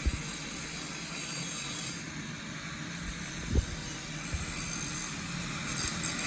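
Angle grinder running steadily, with a few light knocks.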